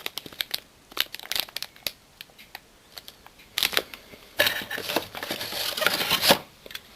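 Packaging rustling and crinkling as accessories are handled and lifted out of a mobile phone's retail box, with scattered small clicks and a longer stretch of crinkling from about four and a half to six seconds in.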